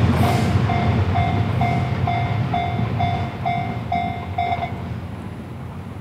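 Railway level-crossing alarm ringing in repeated electronic dings about twice a second, stopping a little before the end. Under it, the low rumble of the passing Series 87 diesel train fades away.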